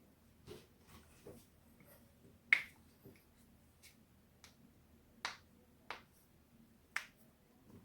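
Human joints cracking: a string of sharp, separate pops, the loudest about two and a half seconds in, three more strong ones in the second half, and fainter pops between.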